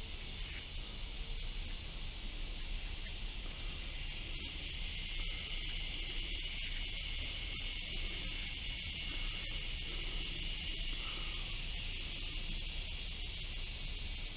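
Steady insect chorus, an even high-pitched drone that holds without change.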